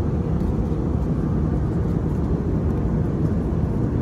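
Airbus jet airliner heard from inside the passenger cabin: a steady low rumble of engines and airflow, even and unchanging.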